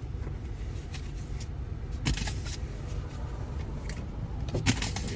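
Car idling, a steady low rumble heard from inside the cabin, with two brief rustling knocks about two seconds in and near the end.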